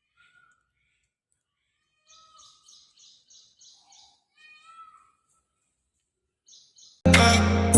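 Birds chirping faintly, with a quick run of repeated high chirps about three a second and a few lower short calls. Loud background music starts abruptly about seven seconds in.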